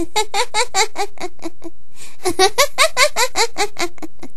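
A woman's voice acting out a character's giggling laughter: two quick runs of laughs, each about a second and a half long, with a short pause between.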